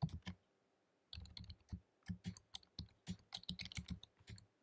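Typing on a computer keyboard: a few key clicks, a short pause, then a steady run of keystrokes.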